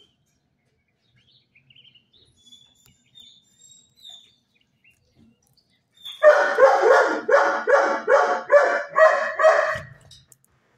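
A dog barking about eight times in a quick, even run, after a few seconds of near quiet broken only by faint high chirps.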